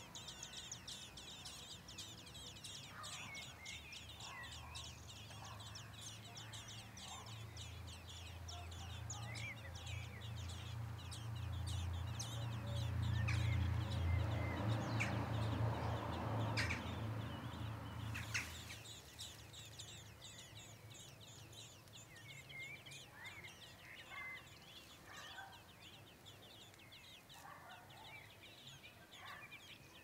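Dense, fast, high-pitched bird chittering that goes on throughout, with a low rumble that swells to its loudest about halfway and dies away about two thirds of the way in. A few short, lower clucking calls come near the end.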